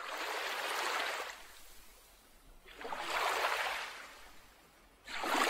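Sea water washing in three swells of rushing noise, each about a second long; the third, near the end, is the loudest.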